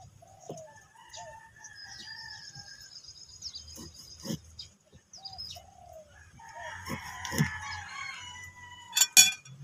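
A rooster crows about seven seconds in, over smaller chicken and bird calls. A cleaver cutting calamansi knocks on the cutting surface a few times, loudest as a quick double knock near the end.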